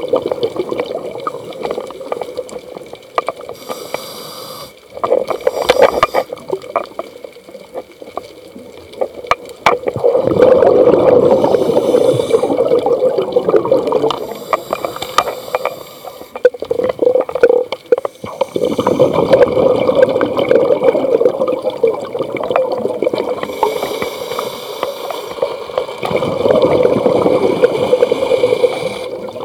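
Scuba diver breathing through a regulator underwater: a short hiss of the inhale, then several seconds of loud bubbling gurgle as each exhaled breath vents, repeating in a slow breathing rhythm.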